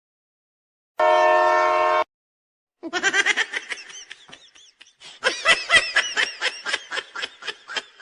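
A train horn sounds once, a steady one-second blast. About a second later comes a long run of rapid, high-pitched laughter.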